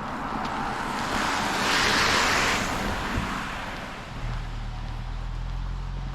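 A car passes, its tyre noise swelling to a peak about two seconds in and then fading. From about four seconds in a low steady hum follows.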